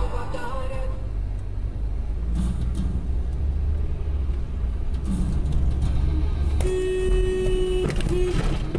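Car's steady low engine and road rumble, with a car horn sounding for about a second around seven seconds in, then a short second toot.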